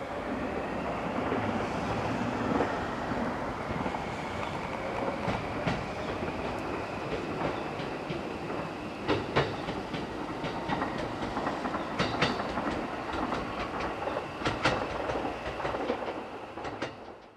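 JR West 521 series electric train pulling away, its motors giving a faint whine that rises over the first few seconds as it accelerates. Its wheels click over rail joints, with a run of sharper clicks in the second half.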